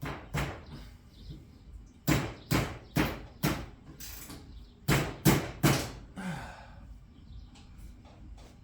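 Sharp knocks in groups of three or four, about two a second: a wrench being struck to break loose a rusted bolt on an ATV frame.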